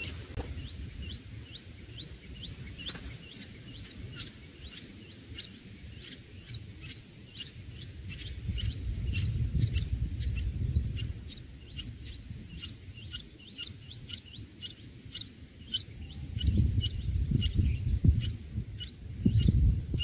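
Red-whiskered bulbul nestlings begging: short, high chirps repeated about two to three times a second. A low rumble swells and fades underneath, loudest near the end.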